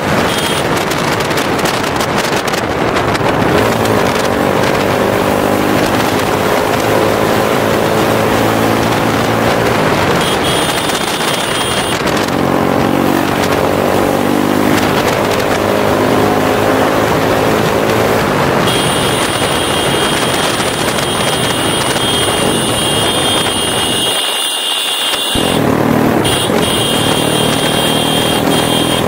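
Motorcycle engine running hard on the move, its pitch climbing and falling again and again as it is revved through the gears, with wind rushing over the microphone. Near the end the engine note drops away for about a second, then comes back.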